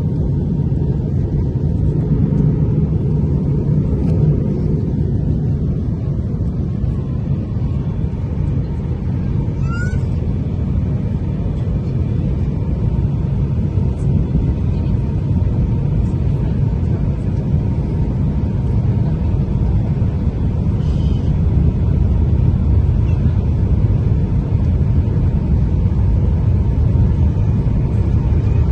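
Steady low rumble of cabin noise inside an Airbus A350-900 airliner in flight, the engine and airflow noise heard from a window seat by the wing.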